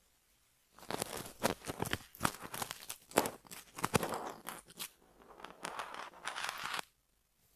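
Crackly scratching and rustling on hair and scalp during a dandruff removal treatment: a quick, uneven run of short crunchy scrapes that starts about a second in and stops shortly before the end.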